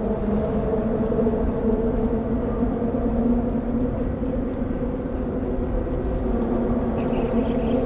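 A skiff's outboard motor running at a steady, even speed.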